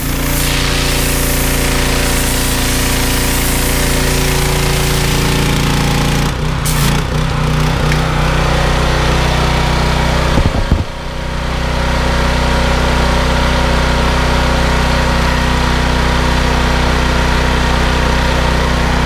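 Pressure washer's 7 hp Loncin single-cylinder petrol engine running at high governed speed and driving its triplex pump. The engine note shifts about six seconds in and dips briefly near eleven seconds, as the load on the pump changes.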